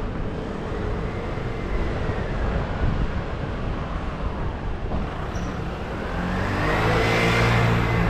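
A car driving on the road: steady tyre and engine noise. About six seconds in it grows louder as an engine note comes up.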